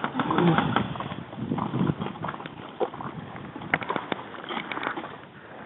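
Gear being handled close to the microphone: rustling fabric with scattered sharp clicks and knocks, a cluster of them about four seconds in.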